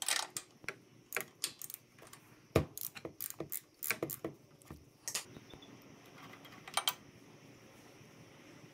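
Hand ratchet clicking and a steel spark plug socket clinking, irregular sharp clicks while the spark plug on a Kohler KT715 V-twin lawn mower engine is turned by hand. The clicks come thick for the first five seconds, with a short burst near seven seconds.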